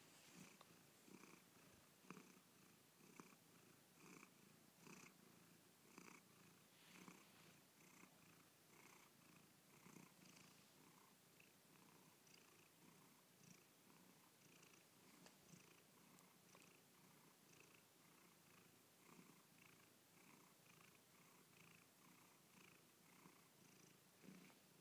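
Angora cat purring softly, a faint rhythmic purr that pulses about once a second with each breath.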